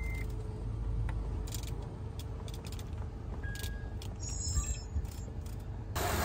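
Honda Odyssey's 3.5-litre V6 idling as a low steady hum, with a few light clicks as the heater and fan controls are set. Near the end a louder steady rush of air starts: the heater blower running at full.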